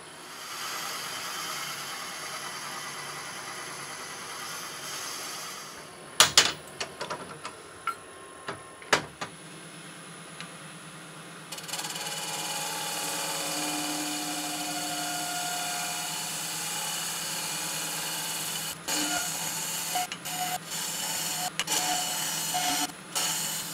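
A wood lathe running while a hand-held turning tool cuts the spinning wooden goblet blank, a steady hiss of cutting. A few sharp knocks come near the middle. Then steadier, louder cutting starts as the cup is hollowed, turning choppy in the last few seconds.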